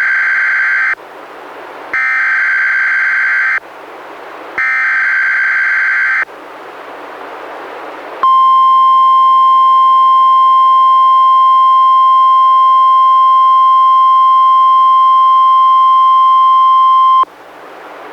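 NOAA Weather Radio EAS/SAME alert broadcast through a weather radio: three buzzy digital header bursts, each about a second and a half, with radio hiss between them. The header carries the unrecognised HAZ event code sent by mistake for a Required Weekly Test. About eight seconds in, the 1050 Hz warning alarm tone sounds as one steady pitch for about nine seconds, then cuts off suddenly into hiss.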